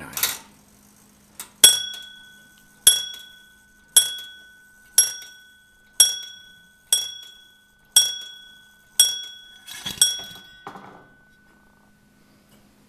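Morbier Comtoise clock's bell struck nine times by its hammer, about once a second, each stroke ringing on and dying away. This is the clock's repeat of the nine o'clock hour, struck again two minutes after the hour.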